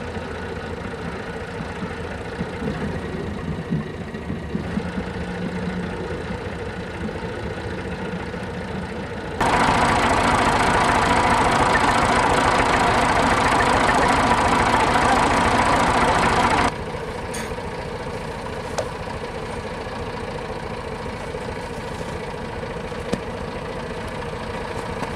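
Tractor engine running steadily at idle. For several seconds in the middle it is much louder and rougher, starting and stopping abruptly.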